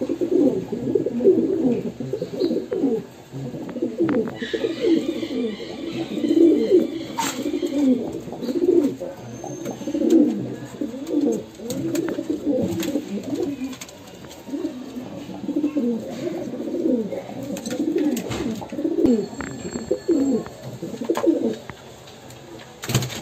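Several domestic pigeons cooing, their low calls repeating and overlapping every second or so, dying down near the end.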